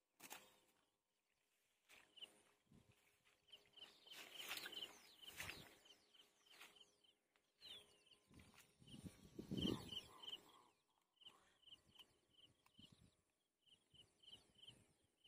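Quiet outdoor background with a small creature's short, high chirp repeating in runs, and scattered faint rustles and knocks, the loudest about four and nine seconds in.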